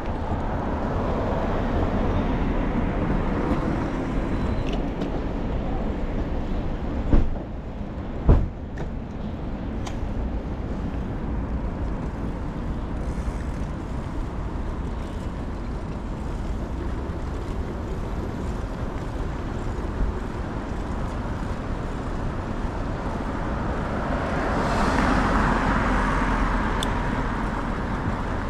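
Steady city road traffic with a low rumble. Two sharp knocks come about seven and eight seconds in, and a passing vehicle swells louder near the end.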